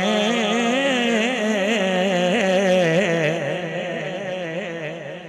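A man's voice sung through a microphone and PA, holding one long, wavering, ornamented note at the end of a line of chanted Punjabi devotional verse. The note fades away over the last two seconds.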